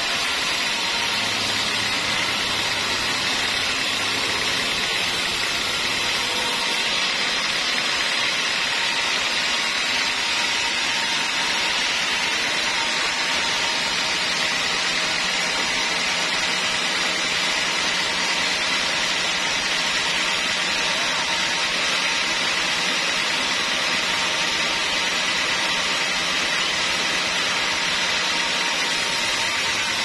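Band sawmill sawing lengthwise through a curved teak log: a steady, even cutting noise with a faint high tone. A low hum underneath drops out about six seconds in.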